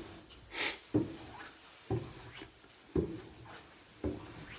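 Footsteps going down wooden stair treads, one dull knock about every second. There is a short hiss about half a second in.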